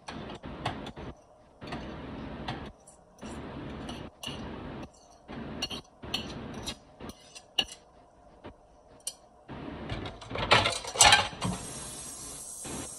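Boiled potato being scraped off a ceramic plate into a bowl with a utensil: repeated scraping strokes with light clinks against the china. About ten seconds in comes a louder clatter of dishes and utensils, then a steady hiss.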